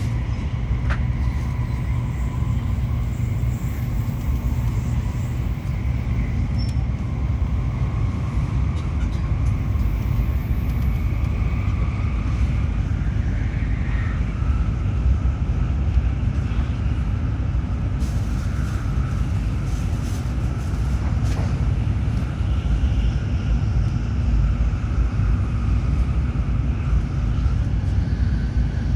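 Running noise inside a Tokaido Shinkansen 700 series passenger car: a steady deep rumble with faint whining tones that drift in pitch.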